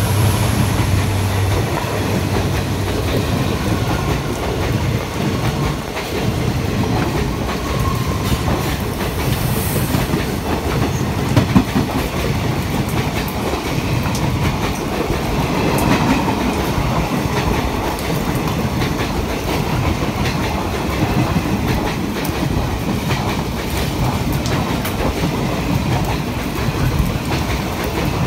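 Indian Railways ICF passenger coaches passing close on the adjacent track: a steady loud rumble with wheels clacking over rail joints. The drone of the leading diesel locomotive's engine fades out about a second and a half in.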